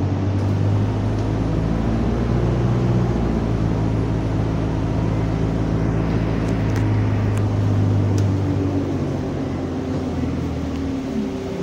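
Alexander Dennis Enviro200 single-deck bus running, heard from inside the rear of the saloon: a steady, deep engine hum. Its pitch falls slightly near the end, with a few faint rattles of the interior fittings in the middle.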